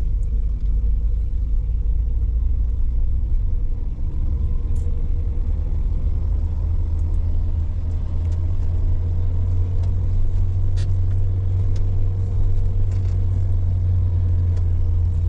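A car driving: a steady low rumble of engine and road noise, with a few faint ticks.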